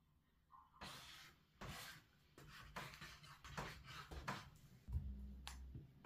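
Knife slicing through a cooked bone-in steak on a wooden cutting board: a run of quiet scraping strokes, roughly one a second, with a brief low thud about five seconds in.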